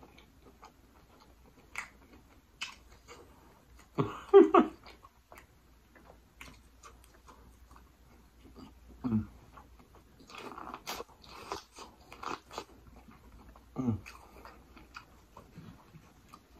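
Close-miked mouth sounds of a person eating a seafood boil: wet chewing and biting with many small clicks, and a few louder bursts about four, nine and fourteen seconds in.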